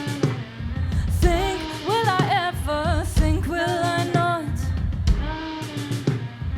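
Live band playing a song: a lead singer sings long, bending notes over a drum kit and bass.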